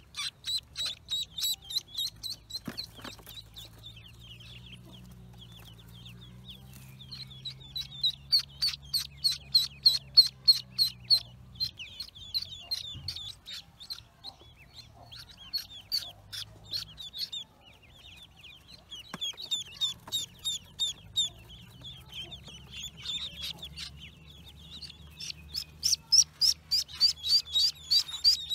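Newly hatched ducklings peeping: runs of short, high-pitched peeps, about four or five a second, broken by brief pauses.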